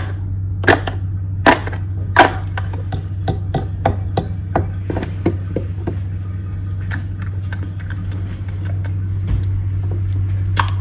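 ASMR-style tapping and clicking on a vegetable oil bottle: a few sharp taps in the first two seconds, then quicker, lighter, irregular taps, over a steady low hum.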